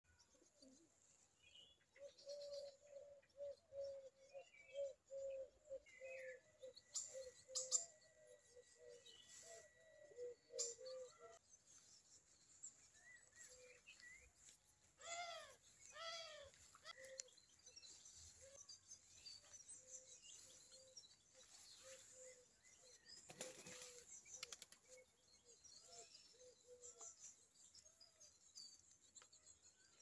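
Faint birdsong: a dove's low cooing, repeated in quick runs of notes, with scattered chirps and a few louder calls about fifteen seconds in.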